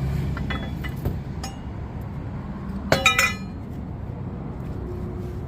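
Metal tools clinking against each other and the brake parts: a few light clicks, then a short cluster of sharp, ringing clinks about three seconds in.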